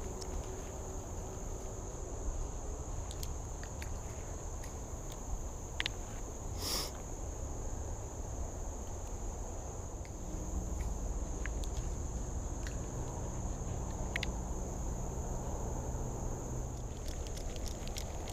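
Insects droning steadily in one unbroken high-pitched note, over a low rumble, with a few faint clicks.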